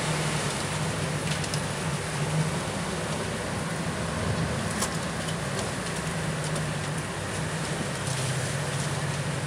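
A rescue boat's engine running with a steady low drone, under wind and rough sea washing around the hull.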